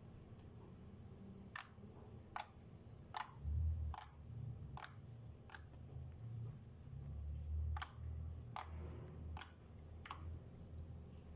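Glossy slime being pressed and played with by hand, giving sharp, crisp clicking pops at a steady pace of about one every 0.8 s, with a short pause in the middle. Low, dull handling thumps run underneath.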